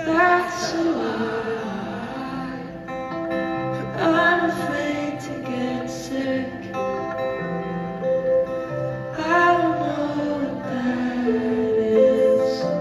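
Live concert music: a woman singing, with strummed acoustic guitar accompanying her, heard over the band through the amplified sound system.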